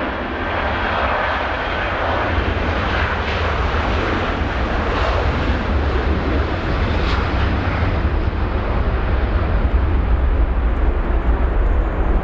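Boeing 737-300's CFM56-3 turbofan engines at takeoff thrust: a steady, loud jet roar with a deep rumble, growing a little louder toward the end as the airliner accelerates down the runway and lifts off.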